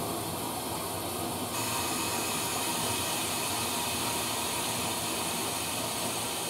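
A steady hiss that grows louder and brighter about one and a half seconds in, then holds.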